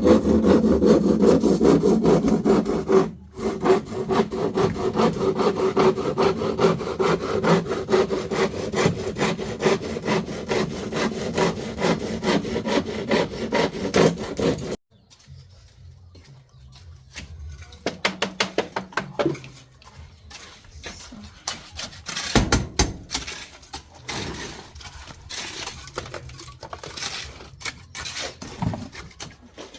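Fast, steady back-and-forth scraping strokes of a hand tool worked against a hard surface for about fifteen seconds, which then break off abruptly; slower, scattered scrapes follow.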